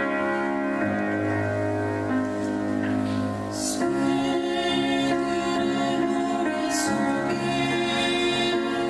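Church choir singing a hymn in long held chords, with instrumental accompaniment; sung 's' sounds hiss briefly a couple of times.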